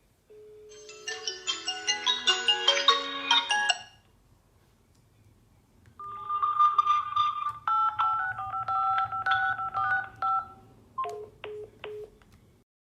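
Smartphone ringtone or alarm tones: a quick melodic run of tones for about three and a half seconds, a pause, then a second, different melody for about five seconds, ending in a few short beeps.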